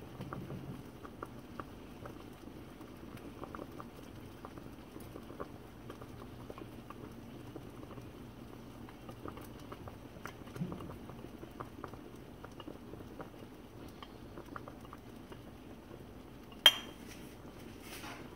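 A pot of champorado (sticky-rice cocoa porridge) simmering on the stove: a steady low bubbling with scattered small clicks and pops. A single sharp clink of dishware comes about a second and a half before the end.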